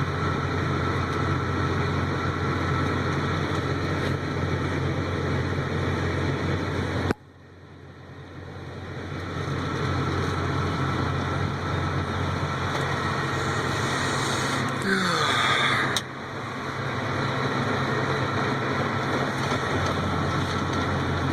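A vehicle engine idling steadily under a wash of heavy rain on the cab. The sound drops out suddenly about a third of the way through and swells back over a few seconds. A short gliding squeak comes about two-thirds through.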